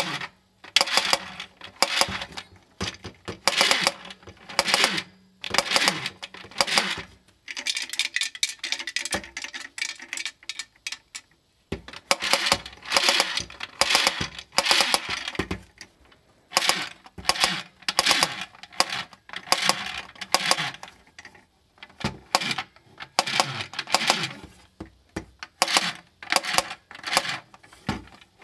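Vintage Marx blue hard-plastic toy tommy gun's noisemaker clattering as its trigger is pulled, in repeated short bursts of rapid clicks with brief pauses between them.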